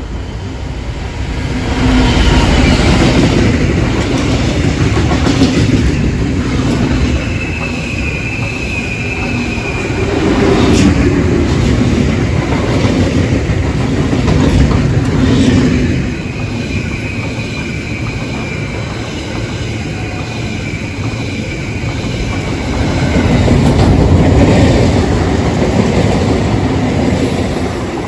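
A Class 66 diesel freight locomotive passing close by, hauling Class 777 electric multiple units and wagons: the locomotive's two-stroke V12 diesel engine rumbles past, followed by the rolling rumble and clatter of the stock's wheels on the rails, with a thin wheel squeal now and then. The sound swells and eases as each part of the train goes by.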